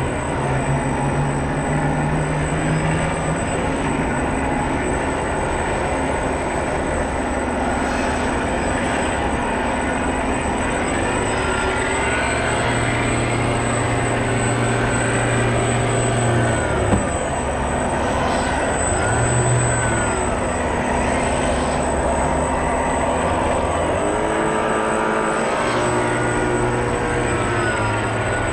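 A 1:40 RC model catamaran ferry's motors running under way, their whine rising and falling in pitch several times as the throttle changes, over a constant high whine and water noise. A single knock sounds about two-thirds of the way through.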